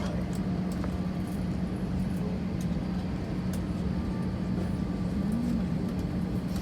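Steady airliner cabin noise: a constant low hum with an even rumble beneath it and a few faint clicks.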